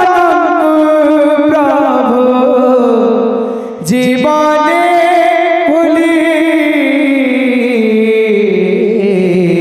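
A kirtan singer's voice through a microphone and PA, singing a long drawn-out devotional line in held notes that slowly fall in pitch. There is a short break about four seconds in before the next phrase.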